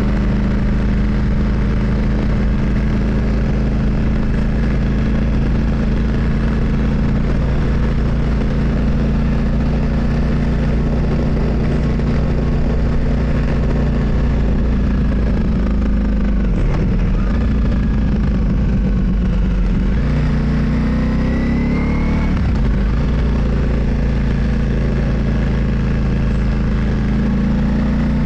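Motorcycle engine running steadily while riding. A little past halfway the engine note drops, then climbs again as the bike picks up speed.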